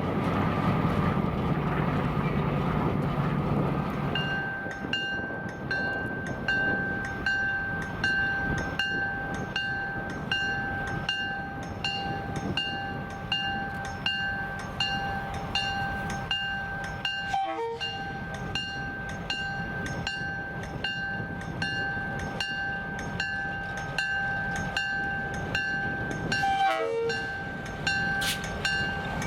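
Diesel locomotive running, then from about four seconds in a bell ringing steadily, about three strikes every two seconds, over the rail noise.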